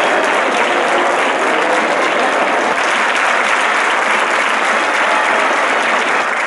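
Large crowd applauding, a steady dense clapping.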